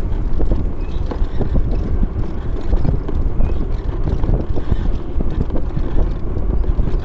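Wind buffeting the microphone over a steady low rumble, with many small knocks and rattles throughout.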